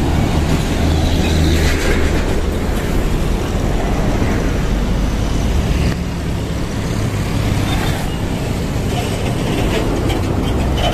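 Busy two-way road traffic passing close by: motorcycles and trucks going past with engine rumble and tyre noise. A heavier rumble swells in the first few seconds and again a little past the middle as larger vehicles pass.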